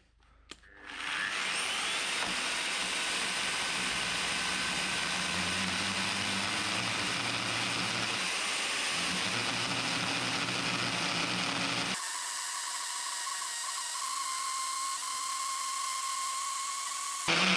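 Festool circular saw on a guide rail spinning up, then cutting steadily through an oak beam under load. About twelve seconds in the sound abruptly turns thinner, leaving a steady high motor whine.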